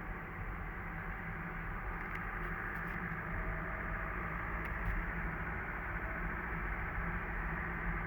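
Mazda CX-30 XD's 1.8-litre diesel car running on the road: steady engine and road noise with a faint steady whistle-like tone. This is the recorder-like whistle from the engine bay that has persisted through replacement of the turbocharger, exhaust parts, the engine and the transmission, with its cause still unknown.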